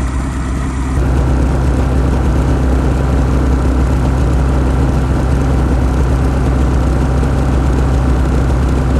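Snowmobile engine running steadily, a little louder from about a second in.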